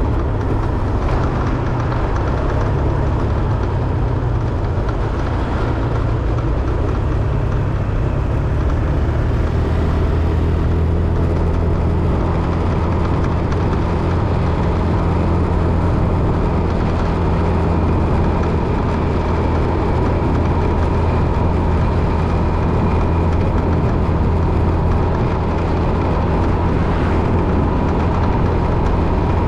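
Vehicle engine and road noise, a steady low drone that holds even throughout.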